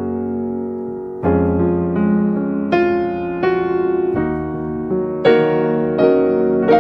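Background piano music: single notes and chords struck about once a second and left to ring, in a gentle, unhurried melody.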